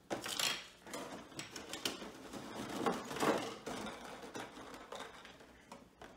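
Clear plastic blister-pack trays being handled and pulled apart, crinkling and clattering irregularly.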